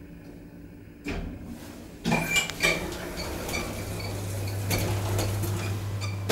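Schindler traction elevator doors opening at a landing: a thud about a second in, then the stainless-steel doors sliding open with metallic clattering and clinking over a low steady hum.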